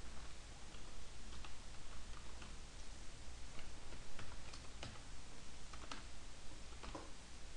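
Computer keyboard typing: slow, irregular keystrokes, a few clicks a second, over a steady low background hum.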